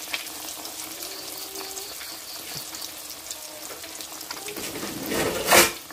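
Patties shallow-frying in hot oil in a wok: a steady sizzle with many small crackles and pops. Near the end comes a brief, much louder rush of noise.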